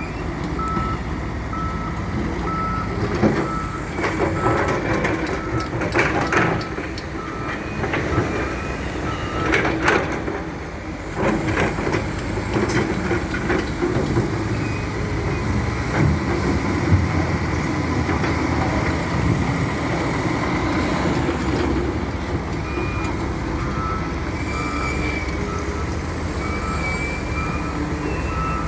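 A wheel loader's diesel engine running steadily under load. Its reversing alarm beeps at the start and again over the last several seconds. In between come several sharp clanks and rattles as stones are handled in the bucket.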